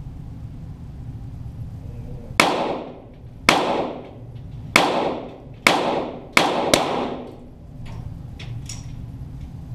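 Six .22 Walther GSP target pistol shots, heard from down by the target, fired at uneven intervals starting about two and a half seconds in, with the last two in quick succession. Each shot is sharp and echoes briefly in the range.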